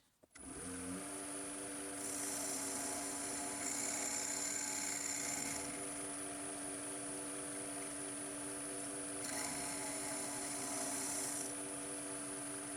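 A motor-driven machine starts up and runs steadily with a high whine and a low, evenly pulsing hum. Twice it takes on a harsher hiss for a few seconds, as of a tool working against material.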